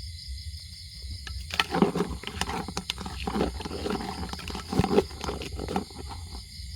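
Steady chorus of night insects, overlaid from about a second and a half in by several seconds of loud rustling and crackling with many sharp clicks, which stops near the end.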